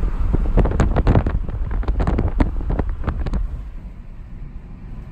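Wind buffeting a phone microphone inside a moving car, over a heavy low road rumble. A run of rapid crackles in the first three and a half seconds dies down near the end.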